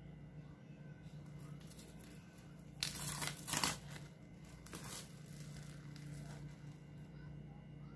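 Plastic cling wrap crinkling as it is peeled back off a glass dish, in a short cluster of rustles about three seconds in and a smaller one near five seconds.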